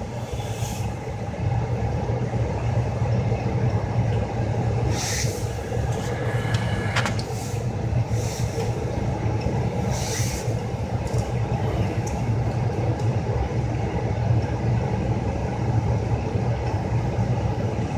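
Carrier 58PAV gas furnace's indoor circulating blower running steadily, a low even rumble with air hiss. It is the 90-second blower run after power-up (status code 12), before the inducer starts; a few brief high rustles come near the middle.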